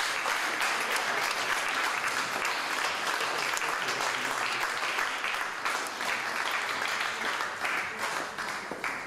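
Audience applause, a dense run of many hands clapping that holds steady and then stops abruptly near the end.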